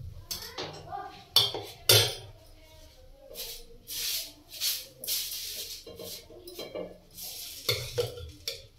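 Metal kitchen utensils clattering: a spatula clinks sharply twice against a steel plate and non-stick tawa, followed by a run of short rubbing swishes as the pan is wiped, and more clatter near the end as a ladle is lifted from a steel pot of dosa batter.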